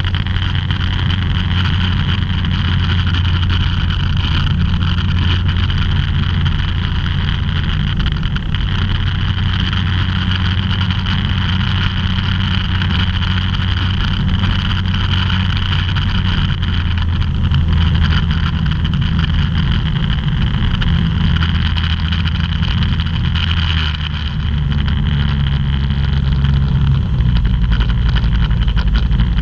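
Microlight aircraft's engine and propeller droning steadily in flight, heard from inside the cockpit. The engine note shifts a few times in the second half, dropping and then rising again near the end.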